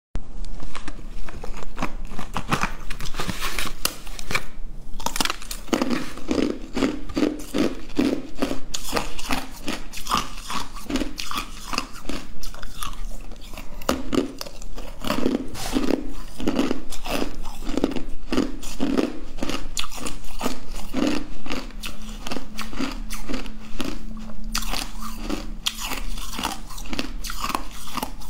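Close-up crunching of hard blue ice blocks being bitten and chewed: dense, irregular cracking bites, with a brief pause about four seconds in.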